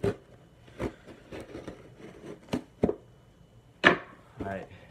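Cardboard shipping box being worked open by hand: a handful of short, sharp scrapes and knocks, the loudest about four seconds in.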